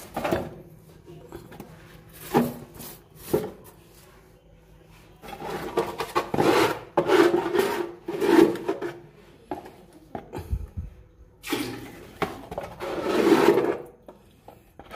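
A wet rag scrubbed and pushed through oily water in an engine bilge: a few short knocks at first, then two longer spells of wet rubbing and sloshing.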